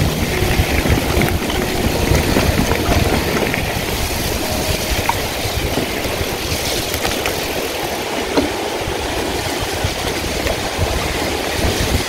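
Electric mountain bike rattling and rumbling over a rough dirt trail at speed, with tyre noise and wind buffeting the camera microphone, and a rushing mountain stream heard underneath as a steady hiss.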